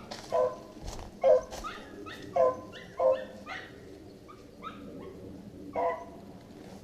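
Beagles baying on a rabbit's trail: five loud barks from a near hound, with fainter, higher pitched yelps from other dogs between them.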